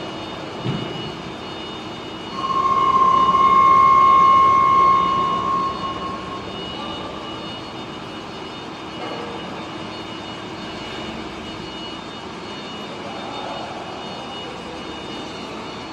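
Flat-bed CNC lathe running: a steady machine hum with several fixed high tones, a brief knock just under a second in, and a louder single-pitched whine from about two and a half to six seconds in.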